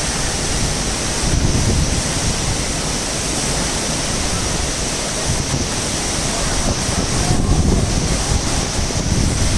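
Steady rushing of a waterfall, with wind buffeting the microphone in low surges now and then.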